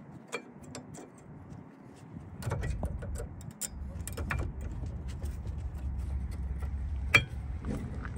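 Light clicks and taps of rear brake pads being pressed by hand into the caliper bracket of a 2010 Hyundai Elantra, with one sharper click about seven seconds in. A low steady rumble comes in about two and a half seconds in.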